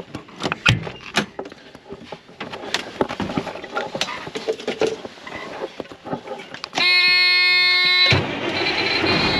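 Footsteps crunching over rough ground in irregular steps. About seven seconds in, a loud steady tone with many overtones sounds for just over a second, then gives way to a steady mechanical running noise.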